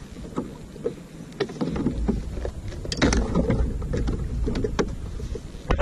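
Water slapping and splashing against a fishing kayak's hull at sea, with wind rumbling on the microphone and scattered small knocks and clicks; the knocks come thickest about three seconds in.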